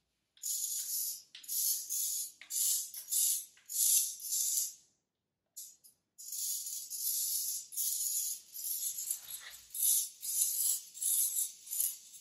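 Small servo motors of a model rocket's thrust-vectoring mount whirring and rattling in repeated short bursts as they swing the engine, with a pause of about a second midway.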